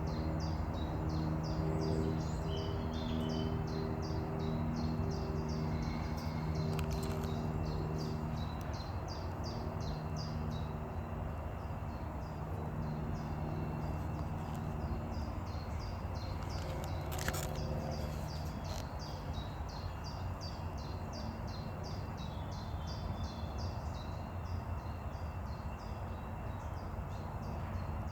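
Outdoor ambience with short, high chirps repeating a few times a second throughout over a steady background hiss. A low steady hum is present for the first several seconds and returns briefly in the middle.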